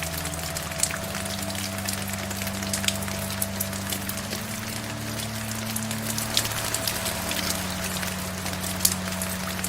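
Steady rain with scattered individual drops, over soft music of held low notes that shift to new notes about four seconds in.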